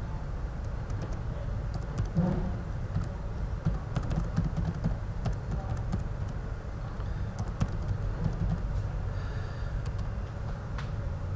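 Computer keyboard typing: irregular runs of key clicks as an email address and then a password are entered, over a steady low rumble. One sharper click comes near the end.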